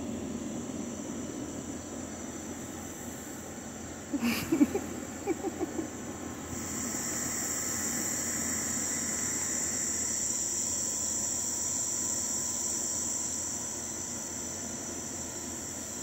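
Steady high-pitched chorus of night insects, growing louder about six and a half seconds in. About four seconds in, a brief cluster of louder short sounds rises above it.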